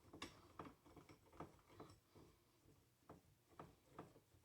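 Faint light clicks from a coil spring compressor on a strut spring as it is tightened down, a run of ticks two or three a second and then a few more near the end.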